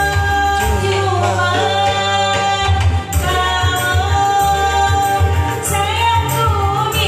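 A sung vocal with held, wavering notes over instrumental backing with a pulsing bass line.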